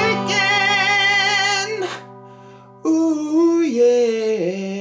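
Closing theme song: a singer holds one long wavering note over steady accompaniment, breaks off about two seconds in, then sings a short phrase that steps down in pitch.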